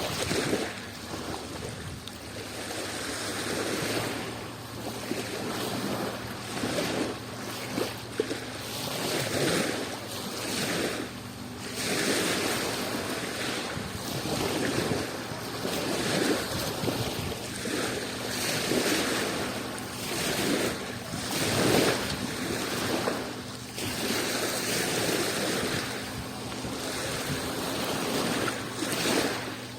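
Adriatic Sea waves washing in on the shore, swelling and easing every second or two.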